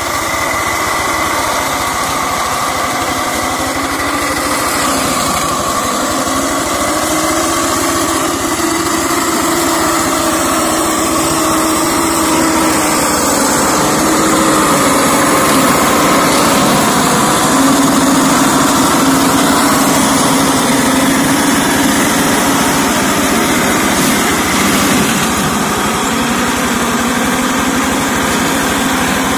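Engine of a two-wheel hand tractor converted into a mower, running steadily under load, its pitch sagging and recovering slightly as it works through brush.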